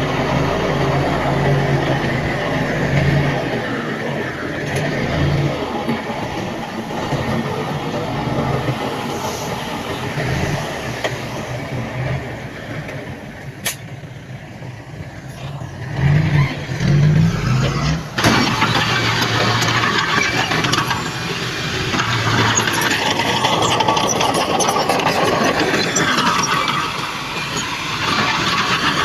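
Diesel engines of heavy earthmoving machinery running and working, the engine note rising and falling. It swells loudly about two-thirds of the way through, with a sharp clank just after.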